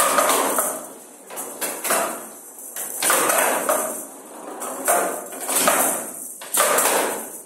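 A showdown rally: the rattle-filled ball is struck back and forth with wooden bats and caroms off the table's wooden side rails, giving sharp knocks about once a second, each followed by a jingling rattle from the ball bearings inside the ball.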